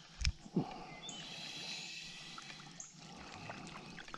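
Faint splashing and trickling of water, with a sharp knock and a short falling sound within the first second.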